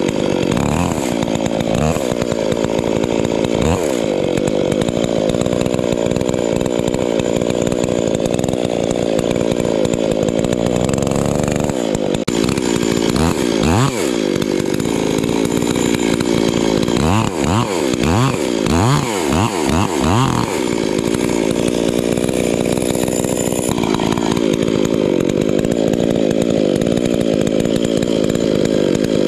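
Two-stroke chainsaw running at high revs, cutting into a tree. Several times, most of all about seventeen to twenty seconds in, the revs drop briefly and climb back as the throttle is eased and reopened.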